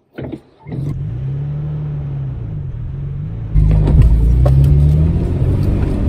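Four-wheel-drive vehicle's engine heard from inside the cabin, its pitch rising and falling as it pulls up a steep off-road climb. About three and a half seconds in it gets much louder, with a heavy rumble and a few knocks.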